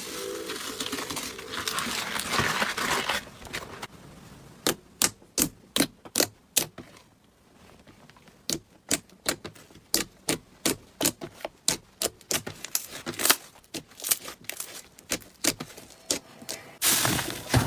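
A run of sharp, irregular clicks or pops, roughly two a second, with a short pause partway through; it starts after a few seconds of hissy noise.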